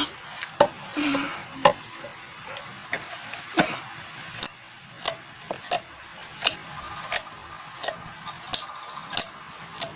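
Thick glossy slime being squeezed and pressed in the hands, giving a string of sharp, irregular clicks and pops.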